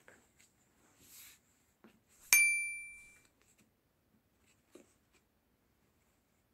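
A single sharp clink about two seconds in, ringing with several high tones and fading over about a second, like a hard object knocked against metal or glass during play with kinetic sand toys. Around it are faint, soft handling sounds and small ticks.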